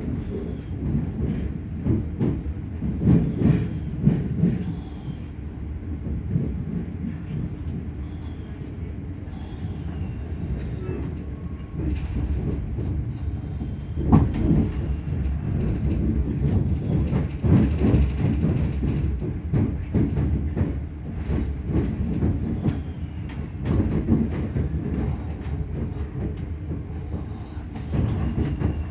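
Class 385 electric multiple unit running, heard from inside the vestibule: a steady low rumble from the wheels and running gear, with frequent clicks and knocks over the track and faint motor tones.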